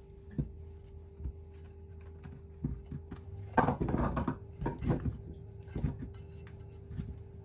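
Raw potatoes, onions and carrots knocking and thudding into a glass baking dish as they are tipped and pushed off a ceramic plate. Scattered knocks, with a quick run of louder ones about halfway through.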